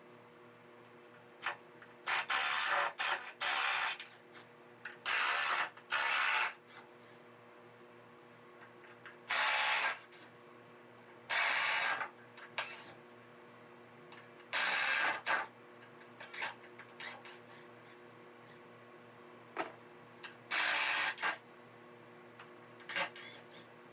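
Repeated short bursts of a power drill-driver running screws in and out of shelving, each lasting about half a second to a second, at irregular intervals over a steady low hum.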